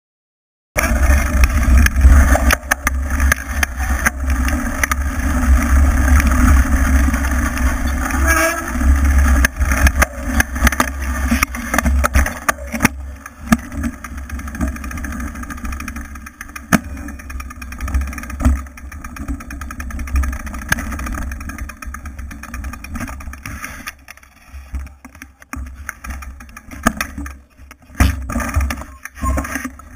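Wind buffeting the microphone of a bike-mounted camera as a mountain bike rides a bumpy dirt singletrack, a deep rumble mixed with rattles and knocks from the bike over the ground. It starts abruptly less than a second in and drops noticeably in level after about 13 seconds, becoming more broken.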